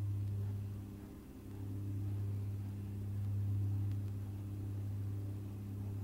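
Steady low hum with fainter higher overtones, dipping briefly about a second in.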